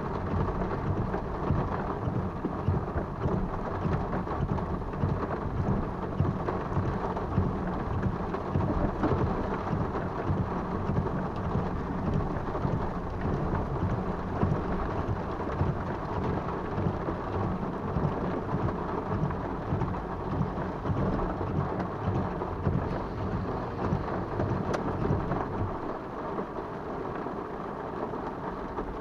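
Heavy rain falling steadily on a vehicle's roof and glass during a thunderstorm, easing a little near the end.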